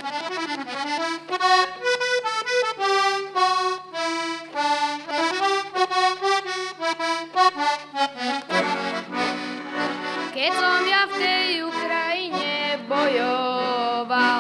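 Button accordion playing a solo introduction to a folk song: a melody over chords, fuller and with wavering notes from about halfway in.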